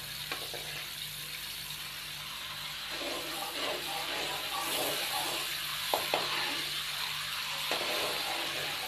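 Desi ghee sizzling steadily as it melts and heats in a metal kadhai, stirred with a metal slotted spoon that scrapes the pan and taps it twice about six seconds in.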